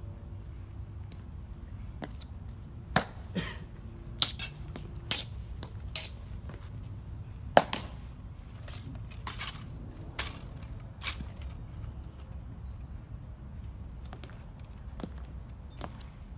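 Sharp, irregular clicks and clacks of honor guard sentinels' metal-tapped heels striking stone paving and their rifle drill, most of them in the first half, then lighter steps as two sentinels march off.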